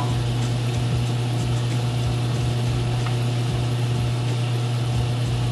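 Homemade concrete metal lathe running, its motor and spindle spinning a three-jaw chuck that holds a brass rod, with a steady low hum.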